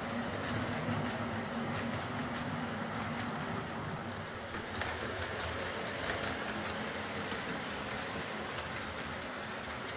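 OO gauge model train running on the layout track: a steady rumble of motor and wheels rolling over the rails, with a few faint clicks.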